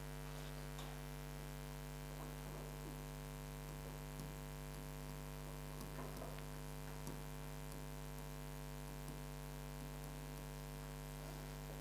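Steady low electrical mains hum with faint hiss, broken only by a few faint soft taps now and then.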